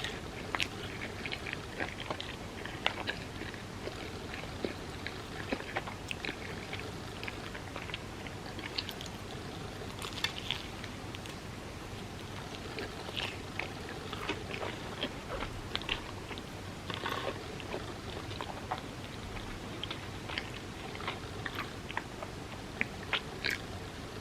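Close-miked chewing and biting: many small, irregular mouth clicks over a steady background hiss.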